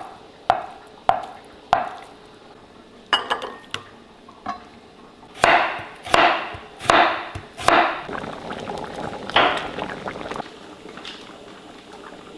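Kitchen knife cutting firm tofu and then raw potato on a wooden cutting board. First come a few sharp taps about half a second apart. About five seconds in, four louder slicing strokes follow in quick succession, with one more a little later.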